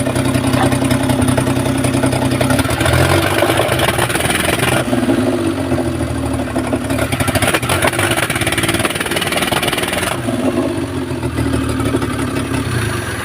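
Maruti Omni's three-cylinder petrol engine running after being started, its speed rising and falling a few times.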